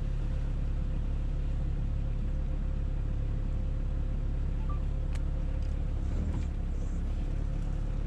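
Sherp amphibious vehicle's diesel engine idling with a steady low hum.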